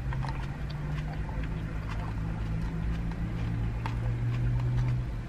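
Close-up eating sounds: chewing salad and a plastic fork giving scattered light clicks against a plastic bowl, over a steady low hum inside a car cabin.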